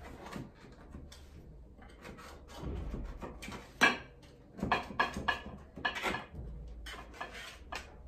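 Kitchenware clinks and knocks: a pastry brush tapping a small bowl and a metal baking tray of bread buns being handled on the counter. The sharpest knock comes about four seconds in, followed by a quick cluster of clinks.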